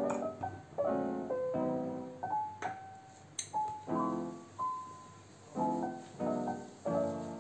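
Background piano music playing a series of chords that ring and fade, with two brief clicks near the middle.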